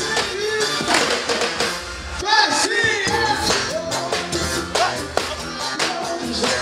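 Live samba band playing: a singer's voice over drum kit, hand percussion and guitar, with a steady beat.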